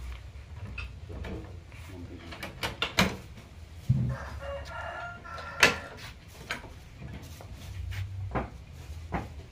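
A rooster crows once, a call of a bit over a second about halfway through. Sharp knocks and clacks come throughout, the loudest just before and just after the crow, over a low steady hum.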